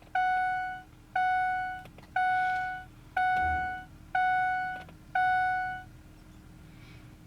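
A 7.3 diesel pickup's dashboard warning chime beeping six times, about once a second, with the key on before the engine is cranked.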